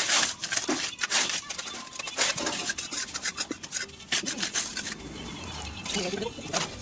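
Masonry work on brick stairs: a trowel scraping and knocking against mortar and bricks in a quick, uneven run of scrapes and taps that thins out about four seconds in.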